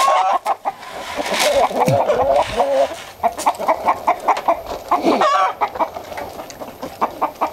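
A flock of chickens clucking and calling while they feed on scattered corn. In the middle comes a quick run of clucks, about six a second.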